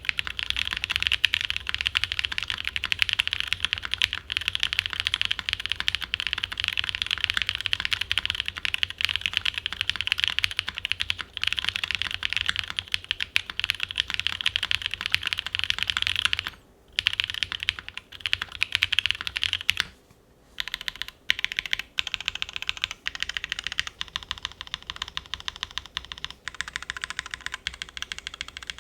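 Fast typing on a Gok 7V custom mechanical keyboard with lubed linear switches (Original Aspiration housings with NovelKeys Cream stems) on a polycarbonate plate, under GMK keycaps: a dense run of key clacks with two short pauses past the middle. The uploader finds the board still a little hollow despite its case and PCB foam.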